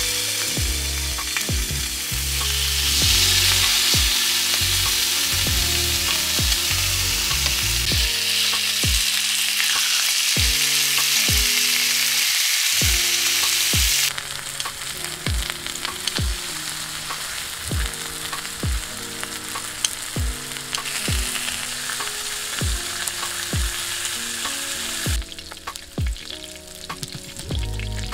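Pork belly slices sizzling as they fry on a griddle pan over a gas burner. The sizzle is loud at first, drops off suddenly about halfway through, and falls again near the end.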